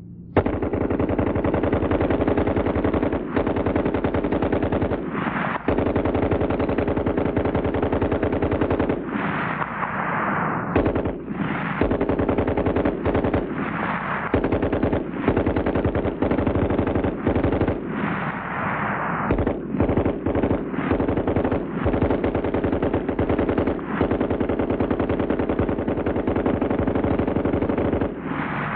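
Water-cooled Browning machine gun firing long bursts of rapid automatic fire, broken by a few brief pauses.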